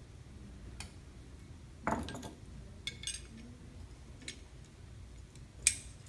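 Scattered metallic clicks and clinks of a refrigeration flaring tool, its flaring bar and yoke, being handled and fitted together on 1/8-inch copper capillary tubing. There is a duller knock about two seconds in and the sharpest click near the end.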